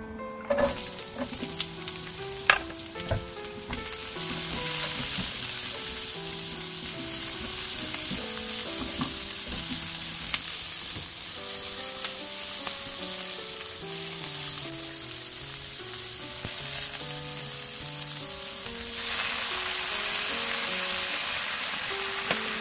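Sliced carrots and onion sizzling in hot oil in a nonstick wok as they are stir-fried with a spatula. A few sharp taps come in the first three seconds, the steady sizzle starts about four seconds in, and it grows louder near the end.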